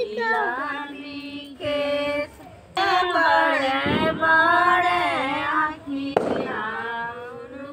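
Women's voices singing a slow Chhath folk song with long held notes, and firecrackers banging twice, about four and six seconds in.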